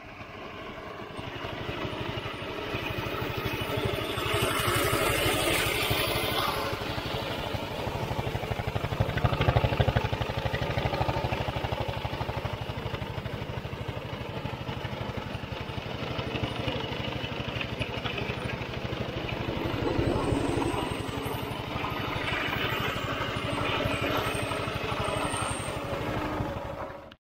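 Small single-cylinder gasoline engine of a go-kart-converted Power Wheels Mustang running steadily, its rapid firing pulses swelling louder a few times.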